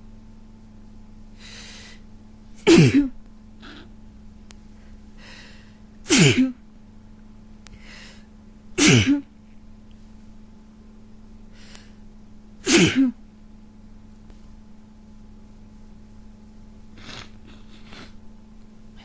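A person with a head cold sneezing four times, a few seconds apart. Each sneeze is a sharp, loud burst ending in a voiced cry that falls in pitch, and each comes after a quick noisy intake of breath. Fainter breathing noises follow near the end.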